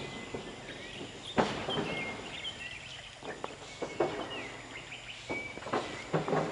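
Small birds chirping in short repeated calls, with several sharp knocks, the loudest about a second and a half in and a cluster of them near the end.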